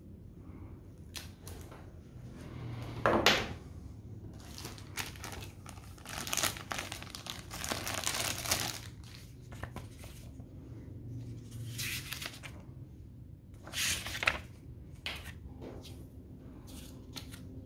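Clear plastic bag crinkling in irregular bursts as it is handled and paper booklets are pulled from it, the sharpest burst about three seconds in and a longer crinkle from about six to nine seconds. Near the end, paper rustles as a booklet is leafed open.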